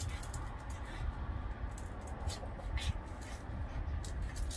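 Two small white spitz dogs play-wrestling, with scuffles and scattered short clicks over a steady low rumble.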